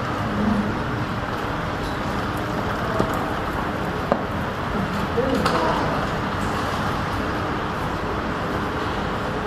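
Steady background noise, with faint distant voices about half a second in and again around five seconds, and two small clicks near the middle.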